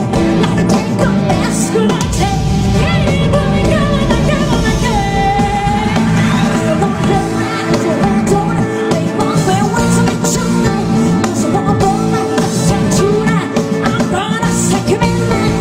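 A woman singing a pop song into a microphone, backed by a live band with guitar and drums.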